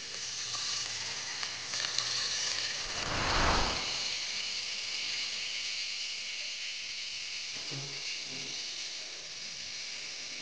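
Pork cheeks sizzling in hot olive oil as the pieces are laid into the pan to sear, a steady hiss with a brief louder rush about three seconds in.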